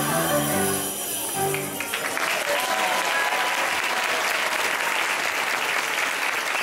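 The last few notes of a song's musical accompaniment, then an audience clapping and applauding from about two seconds in.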